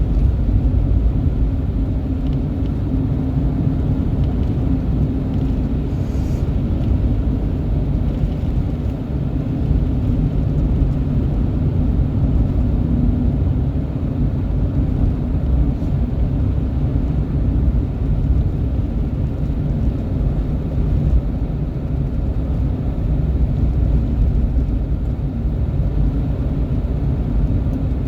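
Steady low rumble of a running vehicle engine, with a faint held drone and no change in pace.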